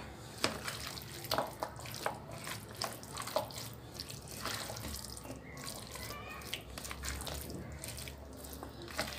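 A plastic spoon stirring a wet chickpea and potato chaat mixture in a steel pot, with irregular squelching, scraping and light clicks, just after a little water has been added.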